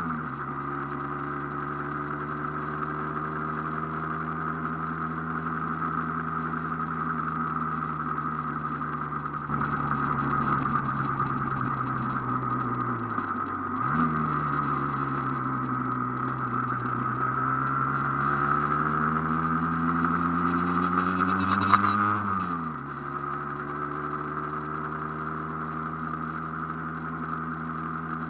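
Aprilia AF1 two-stroke motorcycle engine running under way. Its pitch sags about halfway through, then climbs steadily for several seconds and drops sharply near the end.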